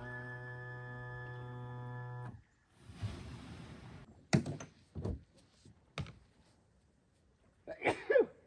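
A steady buzzing hum that cuts off about two seconds in, followed by a few sharp thumps and knocks as camping gear is handled beside a small aluminium fishing boat.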